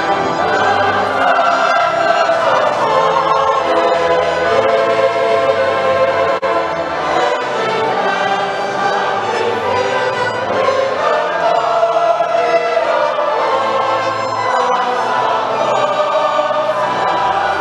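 Church choir singing a hymn with an orchestra of violins, French horn, tuba and trombone.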